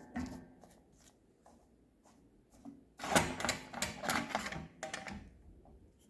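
Rapid mechanical clattering from a small tool or machine, lasting about two seconds and starting about three seconds in, after a few light knocks.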